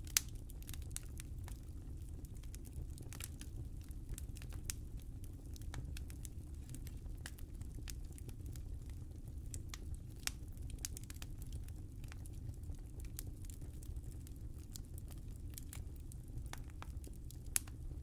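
Fire burning in a fireplace: irregular sharp crackles and pops over a steady low rumble of the flames. The loudest pops come just after the start, about ten seconds in, and near the end.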